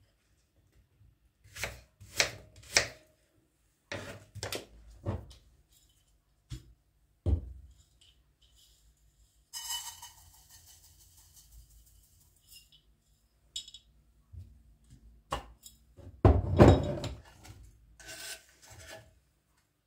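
Short rubbing and scraping strokes with knocks, bunched in quick groups early on and again near the end, and a stretch of steady hiss about ten seconds in.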